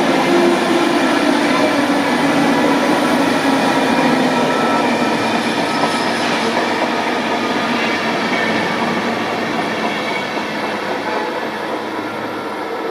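A EuroCity passenger train of Hungarian coaches passes at speed with a loud rushing of wheels on rail. The noise slowly fades as the last coach goes by and the train draws away.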